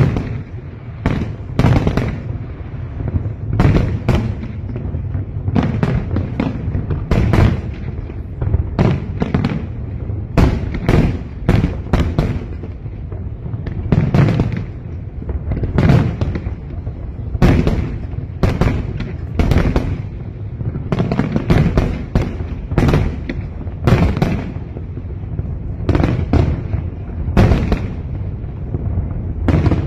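A fireworks display over open water: aerial shells bursting in quick, irregular succession, several bangs a second, with a heavy rolling rumble and echo between them.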